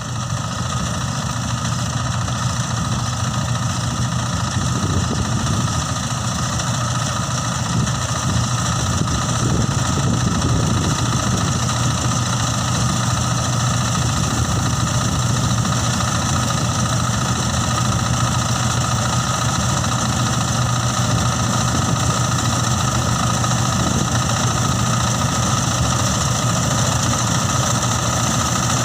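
Mini rice combine harvester running steadily, its engine and threshing machinery giving an even, unbroken drone with a low hum.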